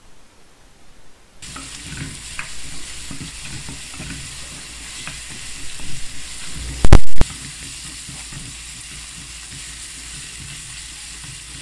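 Diced onions sizzling in olive oil in a frying pan, stirred with a wooden spatula scraping through them as they soften. The steady hiss starts abruptly about a second and a half in, and a brief, very loud knock comes about seven seconds in.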